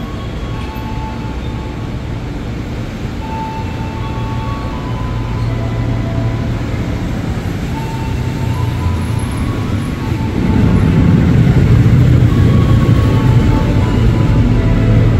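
Ex-JR 205 series electric commuter train running along the platform, with a steady rumble of wheels and motors. About ten seconds in the sound grows louder and deeper as another electric commuter train comes into the station.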